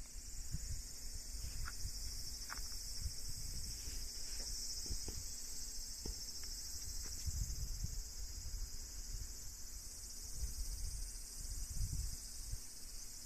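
Steady high-pitched chorus of summer insects, with a gusty low rumble underneath that comes and goes.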